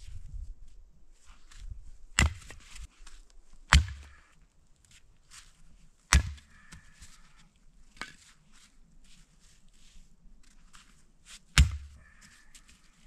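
Wood being chopped with an axe: four sharp strikes at uneven intervals, each with a short ring, and lighter knocks and crunching between them.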